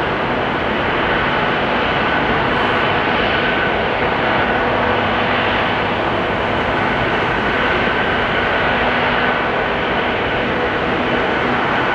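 Antonov An-124-100's four D-18T turbofan engines running at low taxi power: a steady, loud engine noise with a constant high whine.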